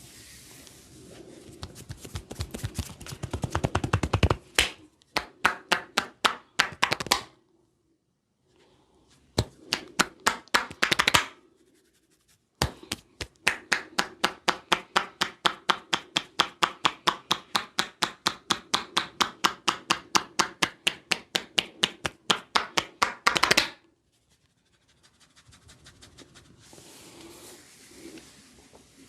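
Rapid percussive hand strikes of a barber's tapping massage. It opens with a fast flurry that grows louder over the first few seconds. After brief pauses comes a long steady run of about four or five crisp slaps a second, ending in a quick burst.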